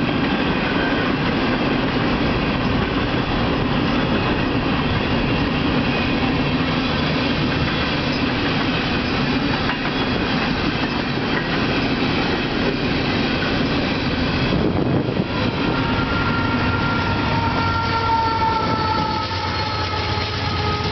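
Empty coal train's gondola cars rolling past: a steady rumble and clatter of steel wheels on rail. About two-thirds of the way through, thin high squeals from the wheels come in and drift slightly lower, and a low steady hum joins near the end.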